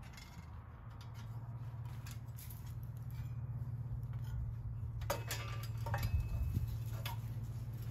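Light clicks and rattles of a sheet-metal exhaust shield being handled and fitted over a small engine, clustered near the end, over a steady low hum.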